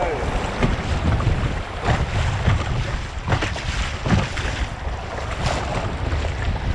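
Wind rumbling on the microphone over moving river water around a kayak, with several short sharp sounds spread through it.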